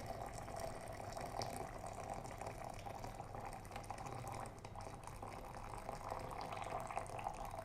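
Freshly boiled water pouring in a fast, steady stream from the spout of a Cosori GK172-01 glass electric kettle into a vessel, stopping near the end.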